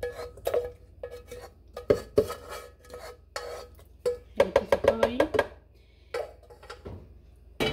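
A spatula scraping cooked sauce out of a stainless steel saucepan into a plastic blender jar, with clinks and knocks of the spatula on the pan and the pan on the jar's rim, including a quick run of knocks about halfway through.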